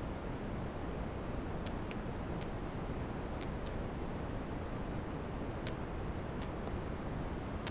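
Computer mouse clicks: about eight sharp, short clicks at uneven intervals, over a steady background hiss and low hum.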